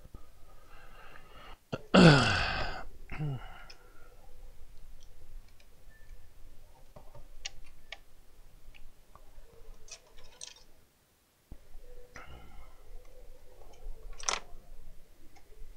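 Small metal clicks and clinks of Allen keys and screws being worked against a plastic soldering-station case. About two seconds in there is a loud, short vocal sound falling in pitch, and a sharp clink comes near the end.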